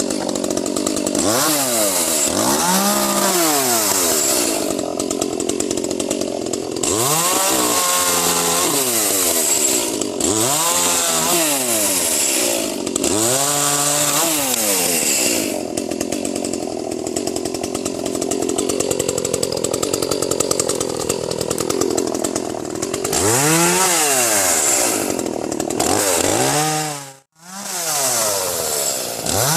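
Echo CS-310 30.5 cc two-stroke chainsaw revving up and dropping back again and again as it cuts pine. There is a longer stretch of steady full-throttle cutting in the middle, and the sound drops out for a moment near the end.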